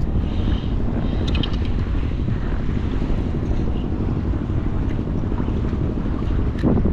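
Steady wind buffeting the microphone over open sea water, a low rumbling rush, with a few faint clicks about a second in and a brief louder gust near the end.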